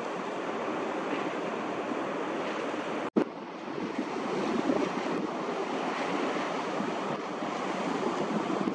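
Steady rushing of wind and sea water. About three seconds in, the sound drops out completely for an instant and comes back with a short click where the recording is cut.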